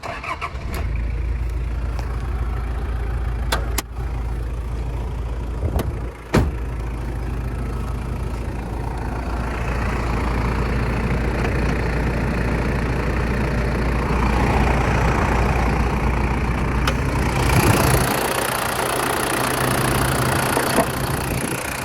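Toyota HiLux Surf's 3.0-litre four-cylinder turbo diesel starts about half a second in and settles into a steady idle. A few sharp clunks are heard over it, the loudest about six seconds in.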